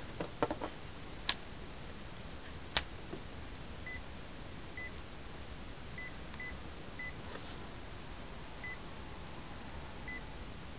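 Sharp SH903iTV mobile phone handled and opened, with a few small clicks and then two sharp clicks, followed by about seven short, identical high key-press beeps as its keypad is pressed to move through the menus.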